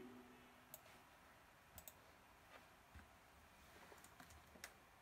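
A few faint, scattered clicks of a computer mouse, otherwise near silence; the tail of sung music dies away at the start.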